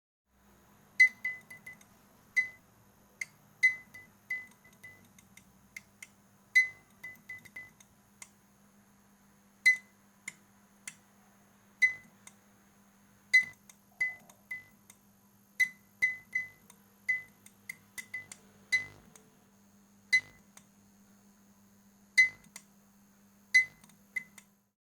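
Failing fluorescent lamp clicking irregularly as its starter keeps trying to strike a bad tube: sharp clicks with a brief ring, some in quick runs of two to four, over a steady low hum.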